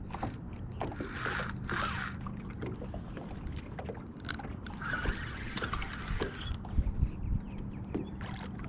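A hooked northern pike being fought and landed beside a boat: water splashing and tackle clicks over a steady low hum.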